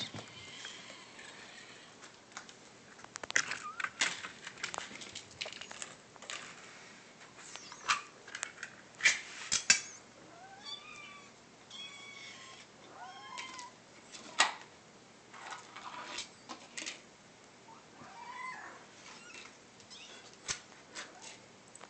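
Kittens mewing in short, high calls that bend in pitch, mostly past the middle, among scattered sharp clicks and knocks.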